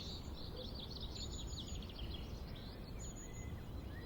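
Songbirds singing over a steady low outdoor rush: a quick trill of short downward-sweeping notes in the first half, then a couple of thin, high whistled notes.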